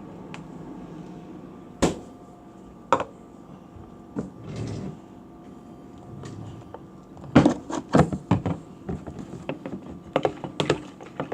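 Scattered sharp clicks and knocks: two single ones early on, then quick clusters of several about seven to eight and a half seconds in and again near the end.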